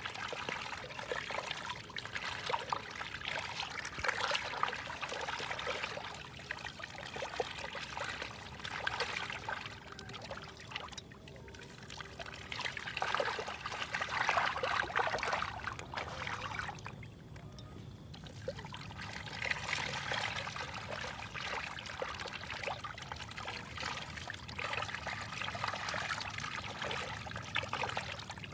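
Water splashing and trickling as fish feed at the surface, a dense crackle of small splashes that comes in swells, with a brief lull about two-thirds of the way through.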